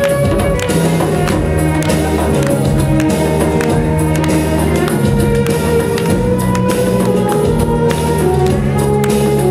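Live band playing loud, driving music, with beats on a hand drum, a violin and a bass line under it.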